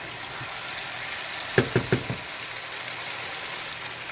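Chicken pieces and potatoes in spice masala sizzling steadily in a pot as they fry. About halfway through, a quick run of about four knocks.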